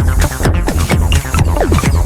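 Loud electronic dance music with a heavy pulsing bass and short synth notes that fall in pitch.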